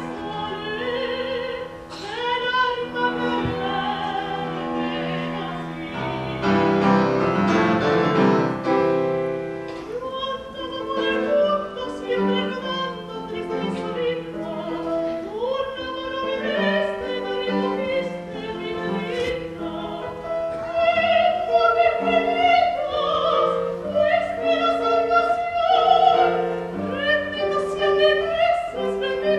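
Operatic singing in a classical style with wide vibrato, accompanied by piano. The music swells about six seconds in.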